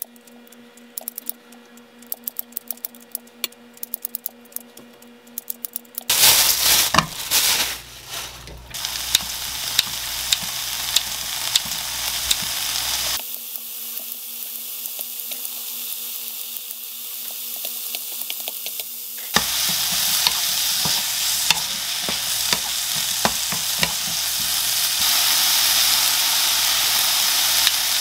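Diced vegetables and meat sizzling in a nonstick frying pan, with sharp snips of kitchen scissors as pieces are cut straight into the pan, and a spatula scraping and stirring as the mix is stir-fried. The snipping is heard alone twice, in stretches where the sizzling drops away.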